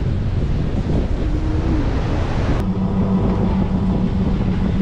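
Wind buffeting the microphone with a heavy low rumble. About halfway through, the sound changes abruptly to a steady low hum.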